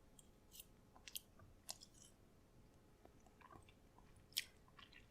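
Faint mouth sounds of a person chewing a bite of microwave-dinner brownie: a few scattered soft clicks and smacks.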